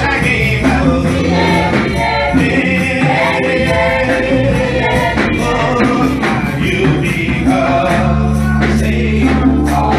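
Live gospel music: a male lead singer and a female backing choir singing over keyboard, bass and a steady beat.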